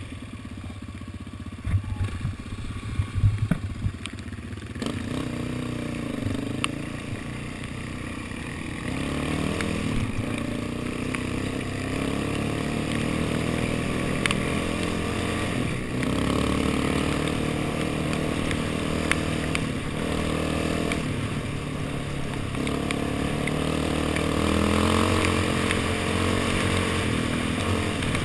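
Quad (ATV) engine heard from on board, pulling away and then accelerating up through the gears along a dirt track, its pitch rising and dropping back several times. Sharp knocks and rattles over rough ground in the first few seconds.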